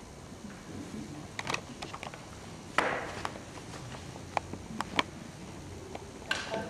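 A scatter of light clicks and knocks from handling, with one louder short rustle just before three seconds in, over faint room noise: a handheld microphone being passed from hand to hand along the panel table.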